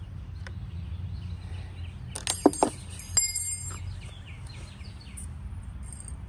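A quick cluster of three sharp, ringing clicks and clinks near the middle, from trimmer parts being handled and fitted together during assembly. Birds chirp faintly over a low steady outdoor rumble.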